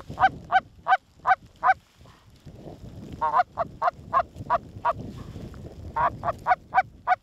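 Canada goose honks and clucks in three quick runs of five or six short notes, about three a second, loud and close.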